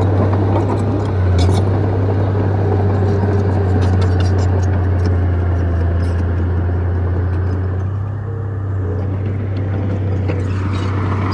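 Bulldozer's diesel engine running steadily with a deep drone, with scattered clanks and clicks from its tracks and the spread dirt.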